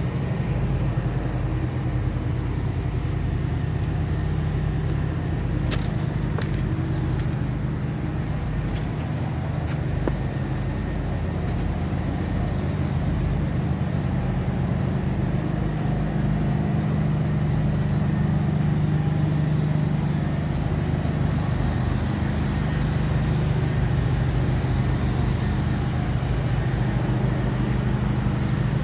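Engine-driven machinery running steadily with a low drone. A few sharp clicks or knocks come between about 4 and 12 seconds in.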